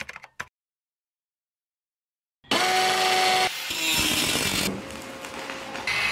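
A few keyboard clicks, then about two seconds of dead silence. Then loud power tools in abrupt cuts: an electric angle grinder whining and grinding through steel angle, switching near the end to another power tool.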